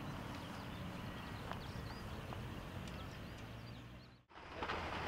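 Outdoor ambience: a steady background hiss with faint, scattered bird chirps and a few light taps. About four seconds in it fades out briefly, then a louder steady rush fades in.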